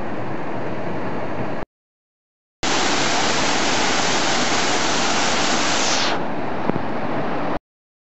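Waterfall rushing in a steady roar of falling water. It cuts out completely about one and a half seconds in and returns a second later slightly louder and brighter. It turns duller shortly before stopping abruptly near the end.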